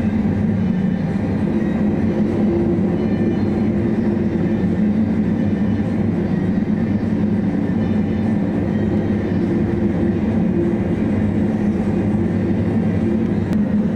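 Steady low drone of a ship's engines and machinery heard aboard a ferry, with a constant hum and no breaks.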